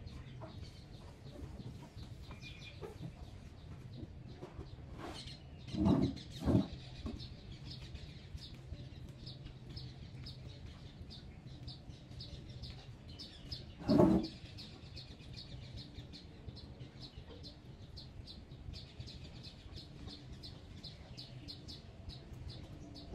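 Birds chirping steadily in the background over a low, steady hum, with three short, louder calls or knocks: two close together about six seconds in and one about fourteen seconds in.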